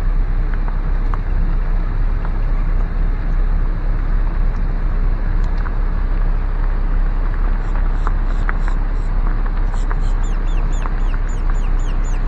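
Steady low rumble of a car rolling slowly along, heard from inside the cabin. From about eight seconds in, a bird joins with a rapid run of short, high, falling chirps, about four a second.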